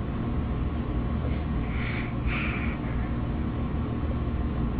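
A baby's two short breathy huffs about two seconds in, over a steady low hum.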